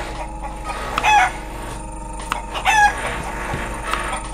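Chicken squawks: two short, loud calls about a second and a half apart, over a steady background hum.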